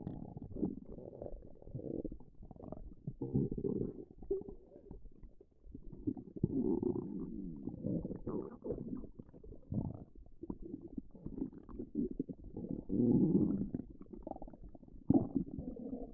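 A stomach growling in long, irregular low rumbles. It swells louder from about six to nine seconds in, again around thirteen seconds, and briefly near fifteen seconds.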